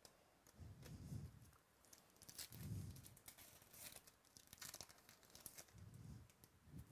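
Faint crinkling and tearing of a foil trading-card pack wrapper being ripped open and peeled off by hand, in several short spells with soft handling thumps.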